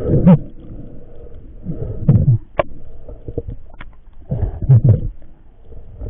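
Muffled underwater noise: low rumbling surges with short knocks, coming roughly every two to two and a half seconds.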